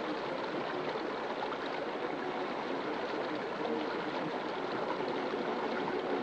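Steady rushing of running water, like a stream, holding at an even level.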